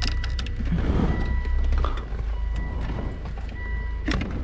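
Plastic shifter-assembly parts clicking, knocking and creaking as they are worked loose by hand, over a steady low hum.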